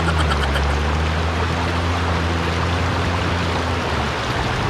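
Dirt bike engine idling steadily over the rush of river water; the engine hum stops about four seconds in while the water noise carries on.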